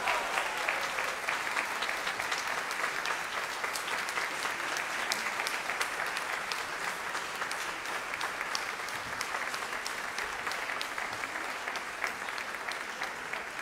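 Audience applause: many people clapping steadily, without a break.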